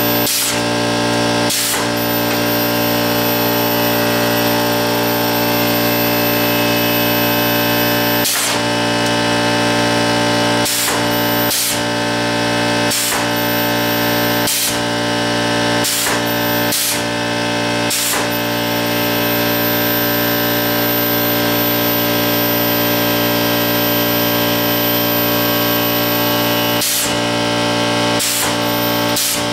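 An air compressor runs steadily while a pneumatic can crusher is cycled over and over, each stroke a short burst of air, about a dozen of them at uneven intervals.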